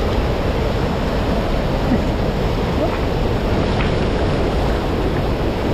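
Steady rumbling rush of wind buffeting the microphone.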